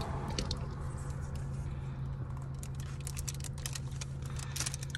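Steady low hum in a car cabin, with light clicks and crinkling of food packaging and a cup being handled, busiest near the end.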